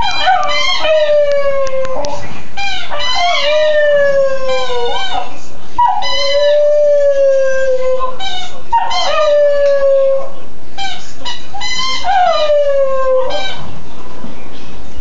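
West Highland white terrier howling, a string of about five long, drawn-out howls. Each howl slides down in pitch. The howling is set off by her squeaky chew toy.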